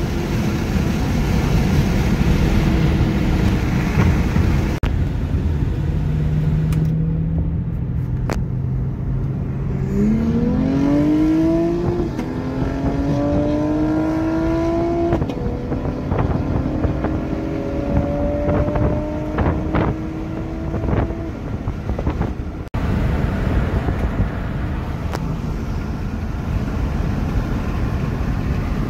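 A car engine pulling hard through the gears, heard from inside a moving car over heavy road noise: its pitch climbs, drops at two upshifts, and climbs again for several seconds.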